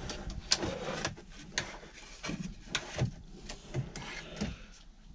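A pine pull-out frame being handled and slid on its metal drawer runners, with sliding and rubbing noise and a string of wooden knocks and clatters as the boards bump together.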